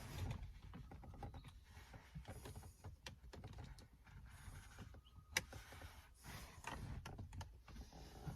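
Small plastic clicks, taps and scrapes of car interior trim being worked and pried loose around the shifter console, with one sharper click about five seconds in.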